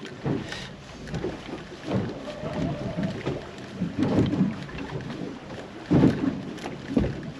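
Water lapping and slapping against the hull of a small boat, with wind rumbling on the microphone, in irregular surges.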